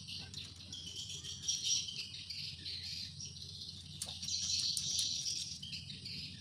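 Steady high chirring of insects in the background, with a few faint clicks from metal parts being handled about four seconds in.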